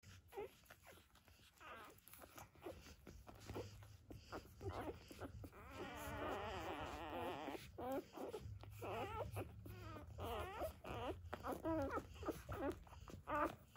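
Newborn chocolate Labrador puppies squeaking and whining while they nurse. Several cry at once in the middle, then single wavering squeals come about twice a second near the end.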